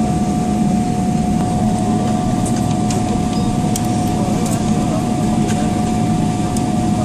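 Boeing 777's twin jet engines at takeoff thrust, heard inside the cabin as a steady, loud rumble with a constant whine on top, as the airliner lifts off the runway. A few faint ticks sound over it.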